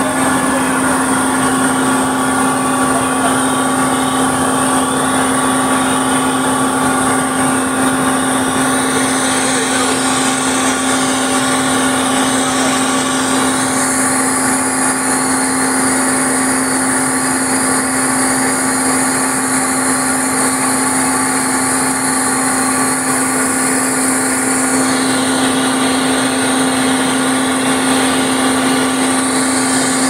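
Sany crane's machinery running steadily with its air conditioning on: an even machine hum with a strong constant low tone.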